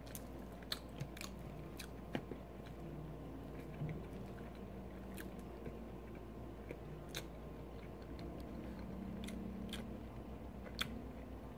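A man quietly chewing mouthfuls of spicy chicken poutine (fries, gravy and chicken), with scattered short clicks and smacks of mouth and fork.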